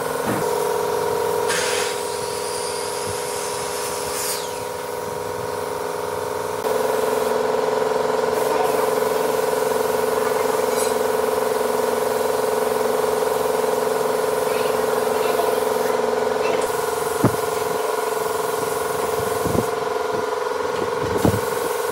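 A woodworking power tool's electric motor running at a steady hum. Early on a whine rises and then drops off sharply, and a few sharp knocks come near the end.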